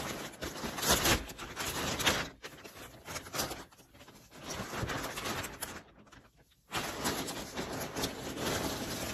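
Plastic poly mailer being torn open and crumpled by hand: rough rustling and crackling in bursts, with a short lull about six seconds in before the rustling resumes.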